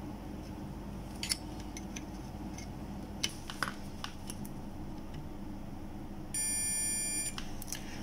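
A few faint clicks of small metal tools against a circuit board during soldering, then a single steady electronic beep about a second long, about six seconds in.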